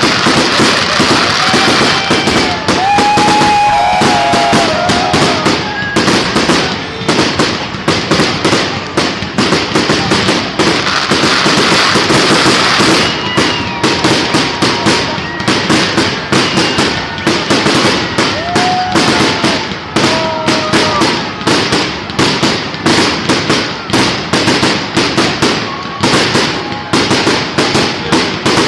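Fireworks display: a continuous, rapid barrage of bangs, many a second, with no break.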